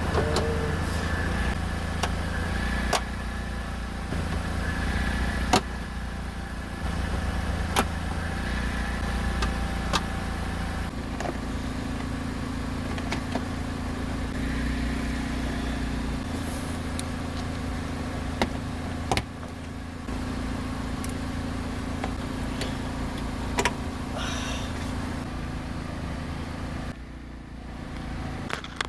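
Steady engine-like idling hum, with a sharp click or knock every few seconds from hand work on the car.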